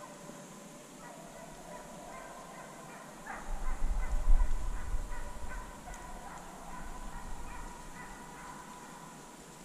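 A pack of hounds baying in the distance on the chase, a run of repeated short calls that swells and fades. A loud low rumble on the microphone from about three to five and a half seconds in.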